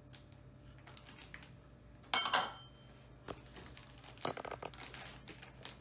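Plastic Ziploc bag crinkling as it is held open and dry seasonings are dumped in. There is one loud crinkle about two seconds in and a quick run of smaller rustles and clicks near the end.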